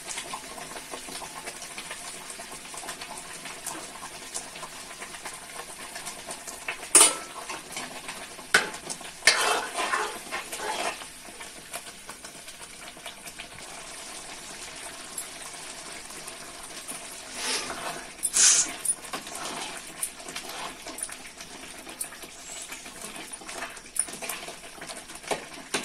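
Tomato-onion masala gravy frying in oil in a steel kadhai, a low steady sizzle, with a steel ladle stirring and scraping the pan; the gravy is at the stage where the oil starts to separate. A few louder sharp sounds stand out, about seven, ten and eighteen seconds in.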